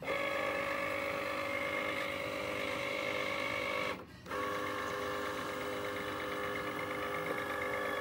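Cricut Explore Air 2 cutting machine's motors running with a steady whine as they drive the carriage and mat, stopping for a moment about halfway and then starting again. The machine is working the light sensor over the sheet's printed border.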